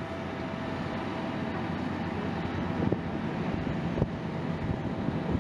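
Heavy diesel site machinery running with a steady low rumble, with a couple of short knocks about three and four seconds in.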